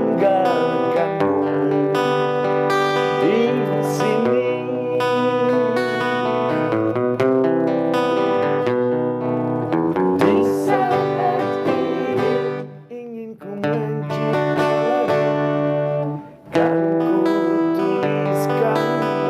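Acoustic guitar strummed in chords, with a singing voice over it at times. The playing breaks off briefly twice in the second half.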